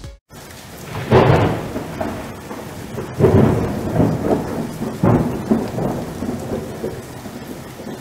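Thunderstorm: steady rain with rolls of thunder, the strongest rumbles about one, three and five seconds in.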